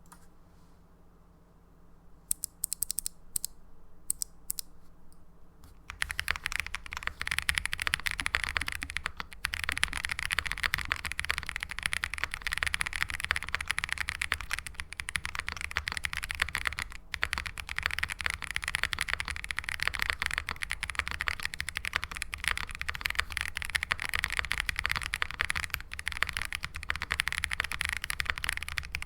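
Custom gasket-mounted 65% mechanical keyboard (Graystudios Space65 R3 with FR4 plate, plate and case foam) fitted with lubed Gazzew Boba U4T 62g tactile switches and GMK keycaps, being typed on. A few single key presses come about two seconds in, then steady fast typing from about six seconds in.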